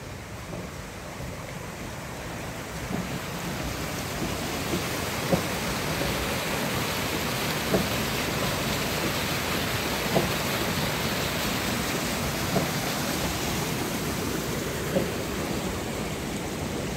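Water rushing steadily down a stone mill channel and wooden flume. It grows louder over the first few seconds, with a soft knock repeating about every two and a half seconds.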